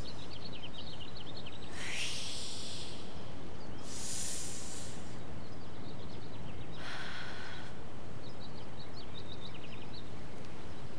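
A person taking slow, deep breaths as a breathing exercise, three loud breaths about a second each, over a steady outdoor hiss. Faint high chirps come and go between the breaths.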